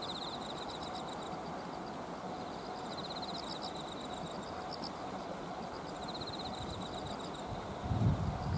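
Insects calling in rapid pulsed trills, each lasting about a second and recurring roughly every three seconds, over a steady outdoor hiss. Near the end a gust of wind buffets the microphone with a low rumble.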